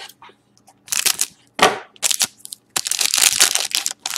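Trading cards and their packaging being handled: several short rustling, crinkling scrapes, the longest lasting about a second from about three seconds in.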